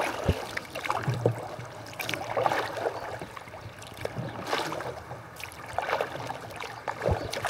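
Kayak paddle strokes dipping and splashing in calm river water, irregular and about one every second, with water dripping off the blades and a couple of light knocks.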